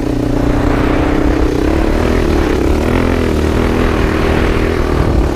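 Suzuki sport quad's engine running under steady throttle as it climbs a sand dune, its pitch dipping slightly about halfway through and then holding, with wind rumbling on the microphone.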